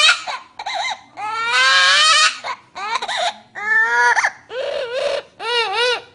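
Parrot imitating a crying baby: a string of about six wailing cries, several rising in pitch. The longest comes in the first half, and the last two waver up and down.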